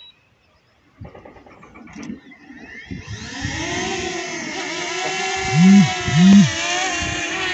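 DJI Mini 2 quadcopter's motors spinning up about three seconds in, settling into a steady high many-toned propeller whine as it hovers close by. Two loud, short, low bumps come a little past the middle.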